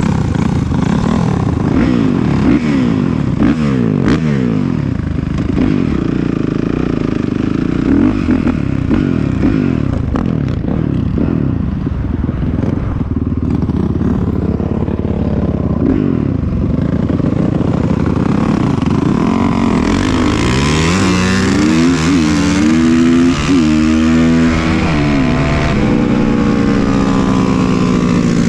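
Honda CRF450R and Tornado 420cc dirt-bike engines at full throttle in a side-by-side run. Their pitch repeatedly climbs and drops as they shift through the gears, with long rising pulls in the last third.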